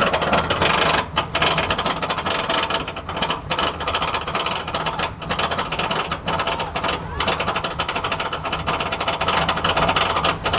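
Roller coaster lift chain and anti-rollback ratchet clattering in a rapid, steady run of clicks as the train is hauled up the lift hill.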